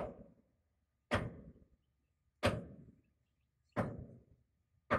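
Hammer blows on the steel track chain of an amphibious excavator: five sharp, evenly spaced strikes a little over a second apart, each ringing briefly. A loose part of the chain is being knocked back into place.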